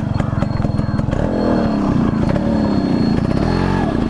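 Yamaha RX100's two-stroke single-cylinder engine running, then revved up and down about a second in, its pitch rising and falling for a couple of seconds before settling back. The revving comes as the bike is stuck on rough scrub ground.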